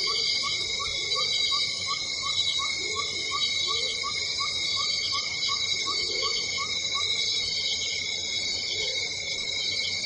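Cicadas singing in a steady, high-pitched chorus, with a fainter short chirp repeating about four times a second underneath.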